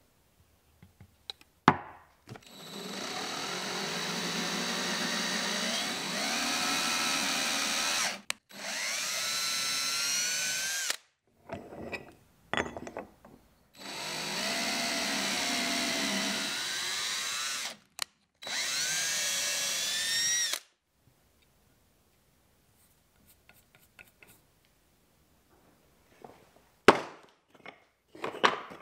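Power drill boring holes into a brass bar, in two runs of several seconds each, with a whine that rises in pitch toward the end of each run. A sharp knock comes just before the first run and a few knocks near the end.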